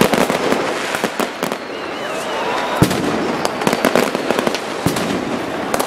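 Fireworks going off overhead in a rapid, irregular string of bangs, pops and crackles, several every second.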